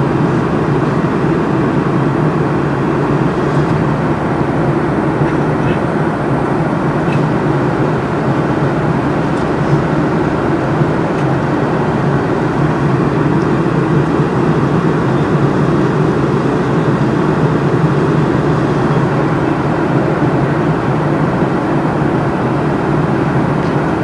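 Steady, loud rumble of engines and rushing air heard inside an aircraft cabin in flight.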